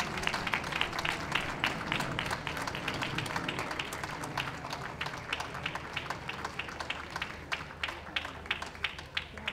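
Audience applauding: a dense patter of individual hand claps that fades away near the end.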